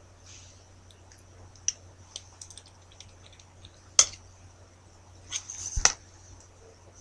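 A few sharp clicks and knocks over a steady low hum and a faint high whine: the loudest, sharpest click about four seconds in, then a short cluster of knocks ending in a low thump near the end.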